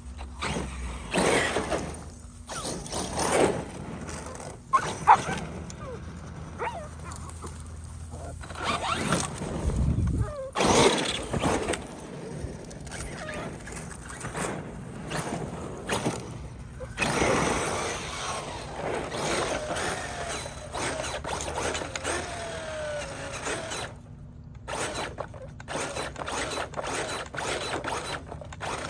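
Traxxas Sledge RC truck's brushless electric drivetrain whirring in irregular bursts as it is driven forward and in reverse while lying upside down, wheels spinning free. A dog barks now and then.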